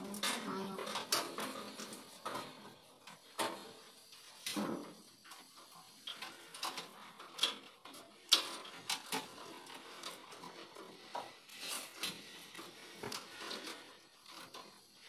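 Handling noise of crimped cables being fitted to a molded-case circuit breaker in a metal electrical panel: irregular clicks, taps and rustling, with one sharper knock a little past the middle.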